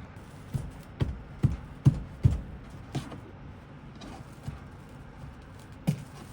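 A series of short knocks, about two a second for the first few seconds, then one more near the end.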